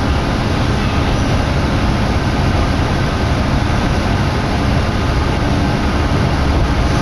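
Steady rumble of a Kominato Railway diesel railcar running along the line, heard from inside the car with a window open, with wind from the window buffeting the microphone.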